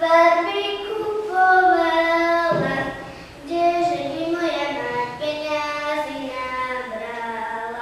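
A young girl singing a Slovak folk song solo and unaccompanied, in long held notes, with a short pause for breath about three seconds in.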